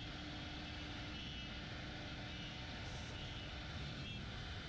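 Steady machine noise with a constant low hum, unchanging in level.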